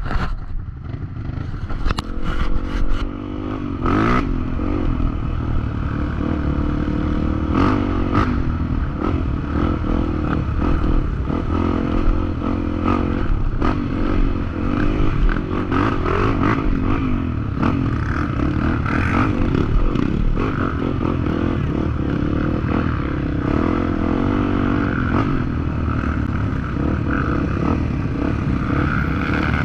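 Trail motorcycle engine revving up and down as it rides a rough dirt trail, with clattering knocks from the bike over the ground, several of them in the first few seconds.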